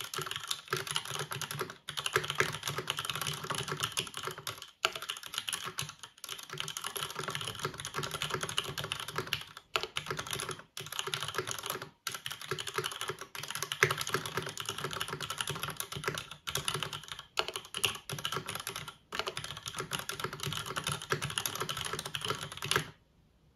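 Fast, continuous typing on a Time 80 Reforged mechanical keyboard, top-mounted with a full aluminium plate and stock MX-style switches, with a few short pauses between bursts. The typing stops abruptly near the end.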